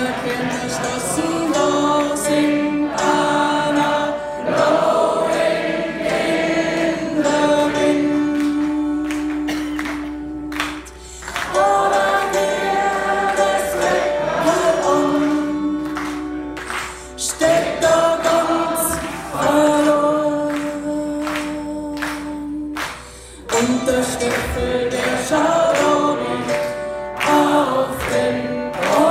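A live band playing while several voices sing long, held notes together in phrases, sounding like a choir. The singing drops away briefly twice, about eleven and twenty-three seconds in.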